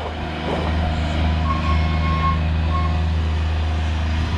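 Vehicle engine running with a steady low hum; an electronic beep sounds about a second and a half in, held for most of a second, then briefly again.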